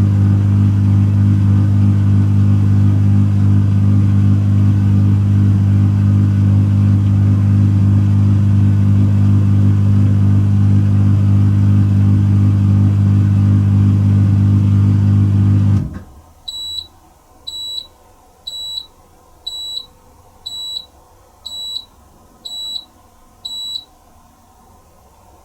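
Pro Action PRSLG96W slimline dishwasher's pump humming loudly and steadily, then cutting off suddenly about two-thirds of the way through. Eight short high-pitched beeps about a second apart follow, the machine signalling the end of its wash programme.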